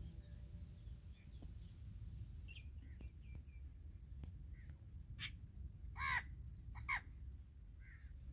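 Crows cawing: several faint calls, then two louder caws a little before the end, over a low steady rumble.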